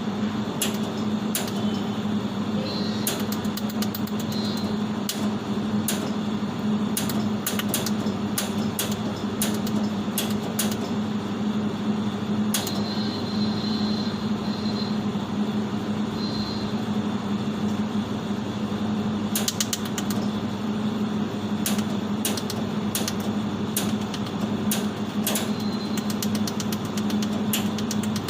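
Jewellery laser welding machine humming steadily while its laser fires: sharp clicks, one per pulse, come in irregular runs, sometimes several a second, with a quieter gap in the middle.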